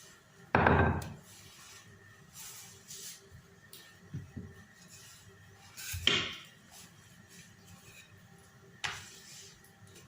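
Kitchen clatter from handling utensils and cookware: a heavy thump about half a second in, another knock around six seconds, and a sharp click near the end.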